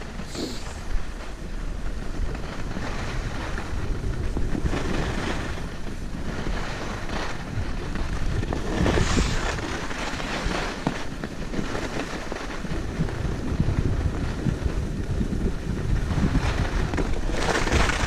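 Wind rushing over a chest-mounted action camera's microphone and skis hissing over groomed snow during a downhill run, swelling and fading every few seconds.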